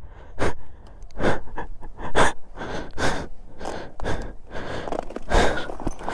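A man breathing hard, with heavy breaths in and out about once a second. He is out of breath from struggling to push a heavy motorcycle up a steep, loose dirt climb.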